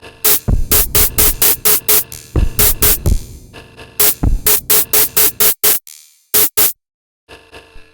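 Electronic drum pattern from the Elastic Drums drum-synth app: a fast run of sharp, bright hits over a low kick, each carrying a short pitched tone. The pattern cuts out abruptly twice in the second half, and only faint hits remain near the end.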